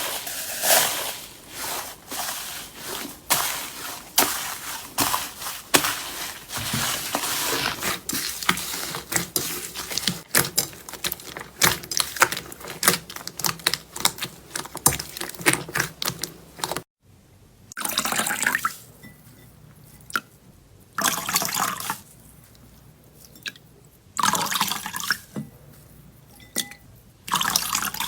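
Slime being squeezed and kneaded by hand: wet squishing full of small pops and clicks. After an abrupt cut about 17 seconds in, it comes as a few short, separate squelches.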